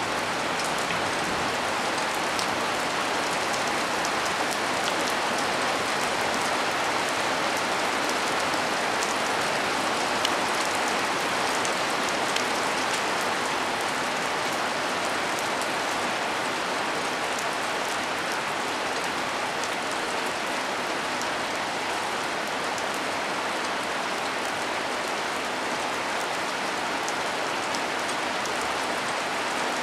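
Heavy rain falling steadily, with scattered ticks of individual drops striking nearby surfaces.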